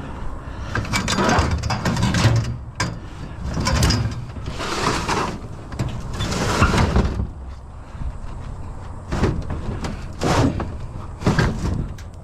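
Scrap metal being handled and loaded: a run of irregular metallic clanks, bangs and scrapes, with several sharp knocks.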